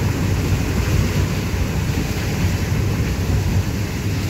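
Vehicle driving, heard from inside the cabin: a steady low rumble of engine and road noise.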